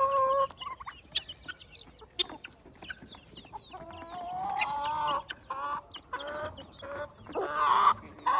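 Chickens clucking and chirping, with a rooster crowing: a call tailing off about half a second in and a longer rising crow about four seconds in.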